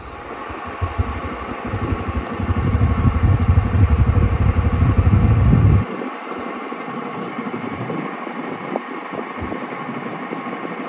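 A vehicle engine running steadily at idle. Under it, a heavy low rumble grows louder and then cuts off suddenly about six seconds in, leaving the even engine hum.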